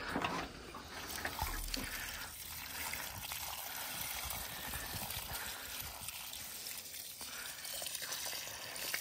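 Water pouring steadily from a large plastic water jug (damacana) onto the soil around a watermelon plant as it is watered by hand.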